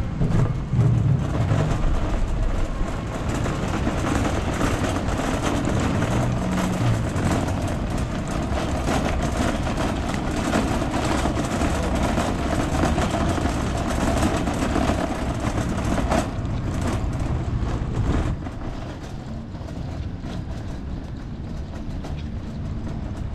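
Metal shopping trolley rattling over paving tiles as it is pushed, a continuous clatter from its wheels and wire basket. It quietens a little near the end as the trolley rolls onto smoother wet asphalt.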